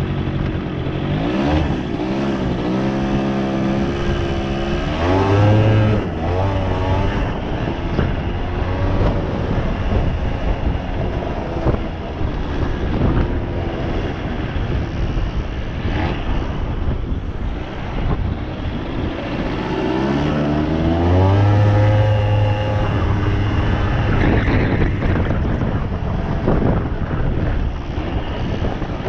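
Suzuki LT80 ATV's small two-stroke single-cylinder engine being ridden, revving up and down. The engine pitch rises clearly near the start and again about 20 seconds in, with rougher stretches between.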